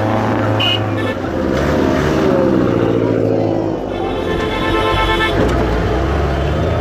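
Engines of off-road 4x4 vehicles idling close by, a steady low drone whose pitch drops lower about four seconds in.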